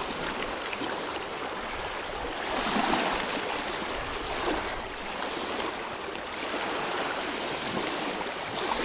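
Steady rushing wash of water at the reservoir shore, swelling and easing a little now and then.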